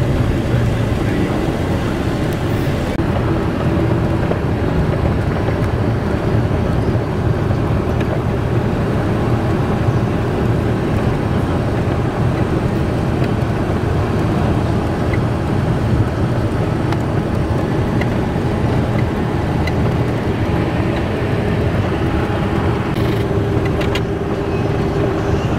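Steady road noise of a moving vehicle heard from inside the cabin: a constant low rumble of tyres and engine at road speed.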